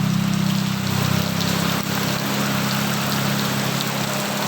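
Steady rain falling, an even hiss of water, with a low steady hum underneath.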